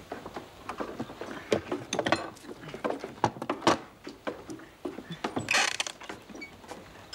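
A wooden cupboard being opened and things moved about on its shelves: an irregular run of knocks and clicks of wood and crockery, with a short scraping rush about five and a half seconds in.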